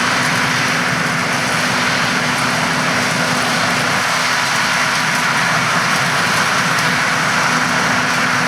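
Peanut harvesting machinery running steadily: an even hiss with a constant low hum.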